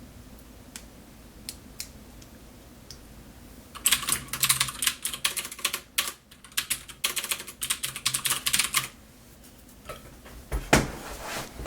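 Computer keyboard typing: two quick runs of key clicks, broken by a short pause. A couple of louder knocks follow near the end.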